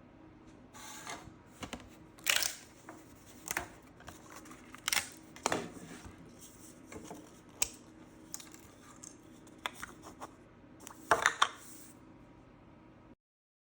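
Irregular sharp clicks and snaps of hard 3D-printed plastic parts being handled, with a loud cluster of snaps about eleven seconds in, over a faint steady hum; the sound cuts off abruptly near the end.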